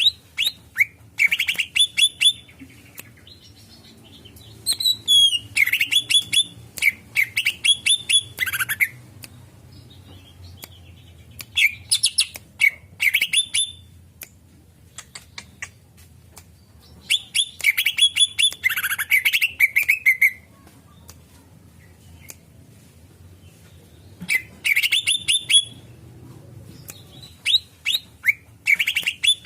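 Green leafbird (cucak ijo) calling in bouts of rapid, sharp, repeated notes, each bout lasting a second or a few seconds, with pauses of a few seconds between them.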